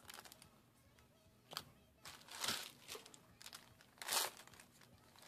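Foil trading-card booster pack crinkling and tearing as it is opened by hand, in a few short bursts, the loudest about four seconds in.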